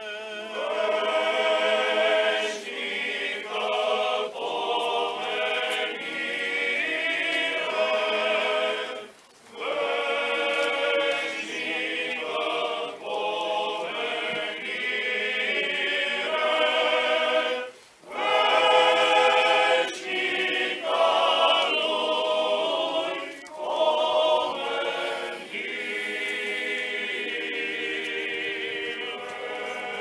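Male choir singing an Orthodox funeral hymn a cappella in long phrases, with two brief breaks about nine and eighteen seconds in.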